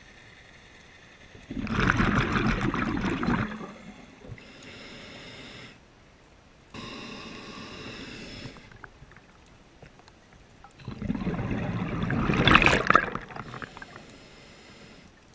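Scuba diver breathing through a regulator underwater: two bursts of exhaled bubbles gurgling past the camera, about two seconds each, with a quieter hissing inhalation in between.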